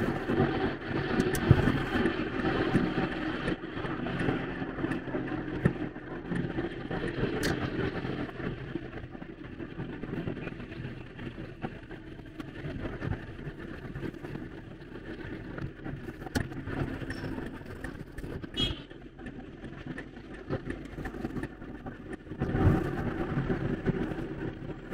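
Engine and road noise of a car driving in town traffic, heard from inside the cabin, a little louder at the start and again near the end.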